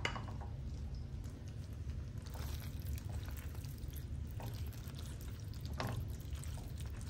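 Cooked elbow macaroni tipped into a pan of thick creamy tomato sauce and stirred in with a spoon: soft wet squelching and occasional scrapes against the pan, over a low steady hum.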